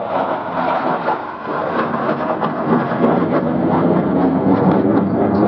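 Jet aircraft flying past, a steady loud jet roar that builds slightly toward the end.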